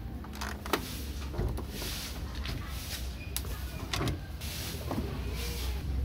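The lid of a top-loading washing machine being lifted open, then clothes going into the empty drum: several sharp clicks and knocks from plastic parts, and rustling fabric.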